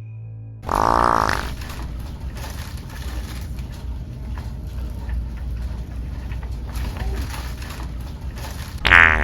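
BrownWind electronic fart toy letting out a loud, short fake fart about a second in, then a steady low background hum, with a second fake fart starting right at the end.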